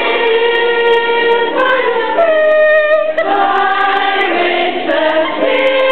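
A choir singing a school song in long held notes that change every second or so.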